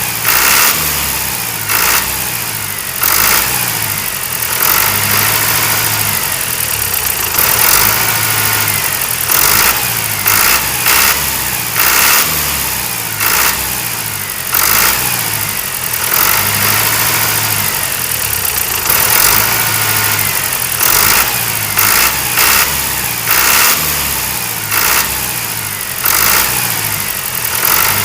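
Engine running steadily, with short louder surges every second or two.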